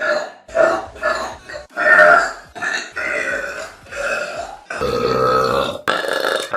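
Girls burping, a string of about eight loud burps in a row, some short and some drawn out for about a second.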